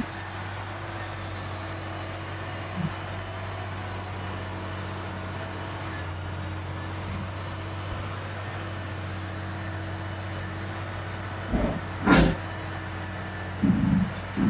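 Steady low hum of the Harsco P-811S track renewal train's engines running, with a few short louder thumps near the end.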